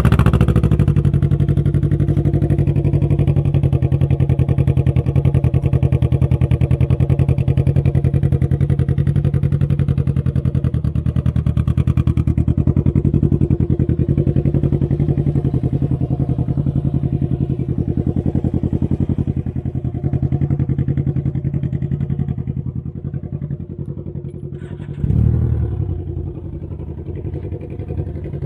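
Can-Am Ryker engine catching right at the start and idling steadily through its exhaust, with one brief rev about 25 seconds in.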